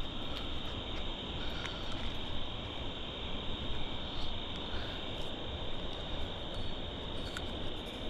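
Crickets chirring steadily in an unbroken high-pitched chorus over low, even background noise.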